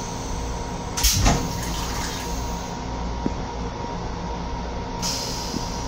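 M7 railcar restroom toilet flushing: a short, loud whoosh about a second in, followed by a hiss of rinse water that stops and starts again near the end. A steady rumble of the railcar runs underneath.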